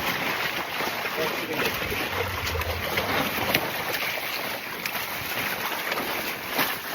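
Steady rushing of wind and water on a small sailboat, with a few faint knocks.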